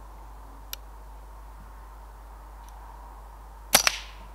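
A single shot from a .177 Brocock Concept XR PCP air rifle near the end: a sharp crack, followed a split second later by a second sharp smack.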